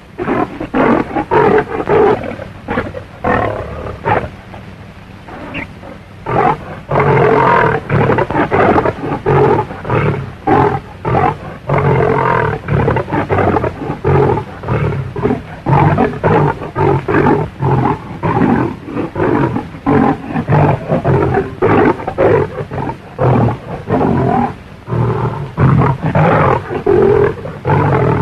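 Lion roaring and snarling over and over, as in a fight, on an old film soundtrack. The roars are sparser for the first few seconds, then come thick and loud, one after another, from about six seconds in.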